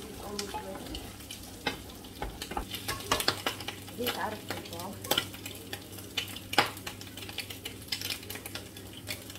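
Garlic fried rice (sinangag) frying with a light sizzle in a nonstick pan while it is stirred and scraped, the utensil and pan giving many sharp clicks and knocks.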